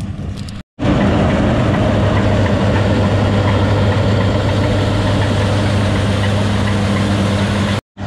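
Rice combine harvester engine running steadily at close range: a loud, even engine sound with a strong low hum. It breaks off for an instant after a brief silence near the start and again just before the end.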